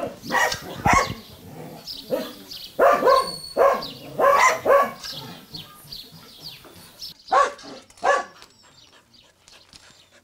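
A dog barking repeatedly in short, loud barks in irregular groups, stopping about eight seconds in.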